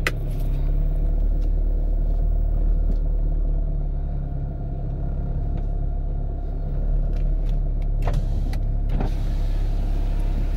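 Honda car's engine running steadily, heard from inside the cabin, with a click as the automatic gear lever is moved at the start and a couple of faint clicks later on.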